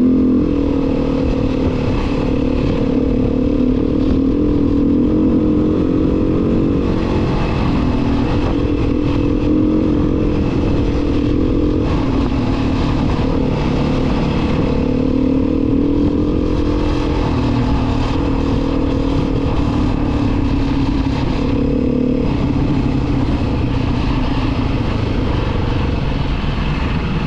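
Vehicle engine running steadily at a constant speed, its pitch drifting gently up and down.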